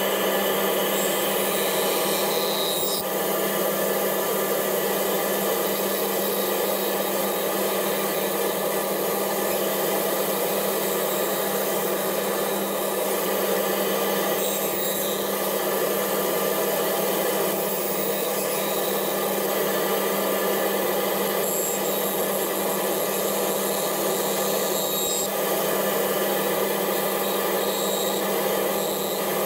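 Bandsaw running with a steady hum, its blade cutting a curved paddle outline through an 8 mm blank laminated from ten layers of veneer.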